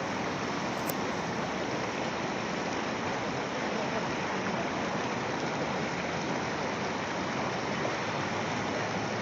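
Fast-flowing Swat River rushing steadily, an even churning roar of water.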